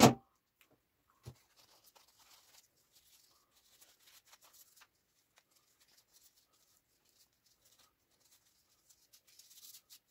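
Paper towel rustling and rubbing faintly against a knife's steel blade and wooden handle as it is wiped down, starting with one sharp knock and a softer knock about a second later.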